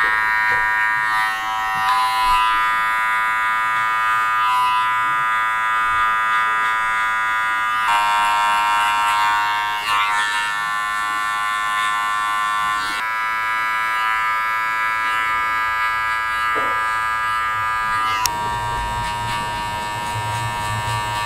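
Electric hair clipper buzzing steadily while it fades and cleans up a beard along the jawline. Its hum shifts slightly in pitch a few times as the clipper is worked against the hair.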